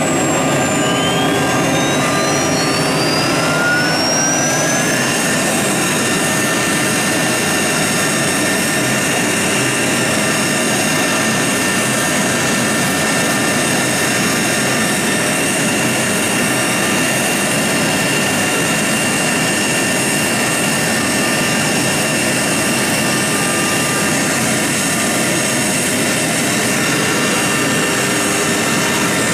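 CNC wood router's electric spindles running, a high whine that rises in pitch over the first five seconds as a spindle spins up and then holds steady over a constant rush of machine noise.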